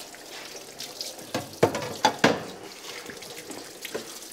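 Water running from a kitchen tap into a sink, with a few sharp knocks and clatters of kitchen utensils about a second and a half to two seconds in.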